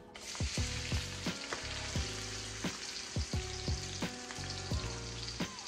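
Diced onions sizzling as they go into hot ground-beef drippings in a wok, a steady hiss with frequent small pops of spitting fat.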